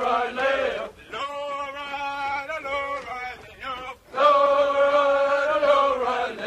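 Men's voices chanting a military marching cadence in drawn-out sung lines, with one long held note from about four seconds in.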